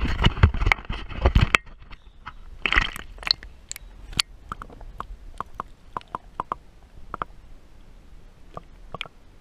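Water splashing at the side of the boat, then the muffled sound of a camera held under the lake surface, with scattered sharp clicks and crackles that grow fewer toward the end.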